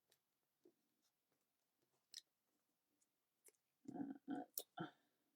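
Near silence with faint scattered clicks from paper-craft pieces and tools being handled, then a quick run of about four louder taps about four seconds in.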